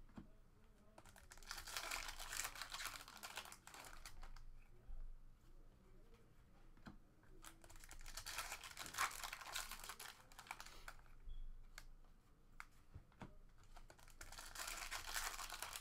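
Foil trading-card pack wrappers crinkling as packs are torn open, with the cards clicking and sliding against each other as they are handled. The crinkling comes in three spells: about a second in, around eight seconds in, and near the end.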